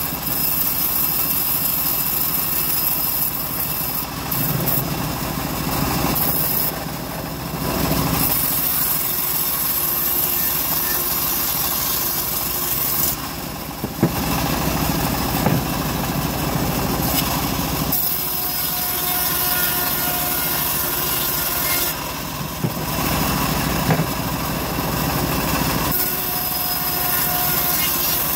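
Homemade bandsaw mill running steadily while its blade rips timber planks lengthwise, a constant mechanical drone under a high cutting hiss. The hiss drops away briefly a few times, between passes of the board.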